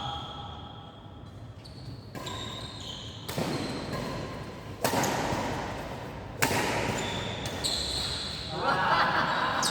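Badminton play: sharp racket hits on a shuttlecock, two of them about a second and a half apart in the middle, with short high squeaks and background voices growing louder near the end.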